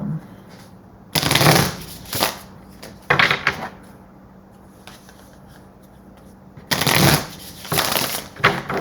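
A deck of tarot cards being shuffled by hand in several short bursts, with a pause of a few seconds in the middle.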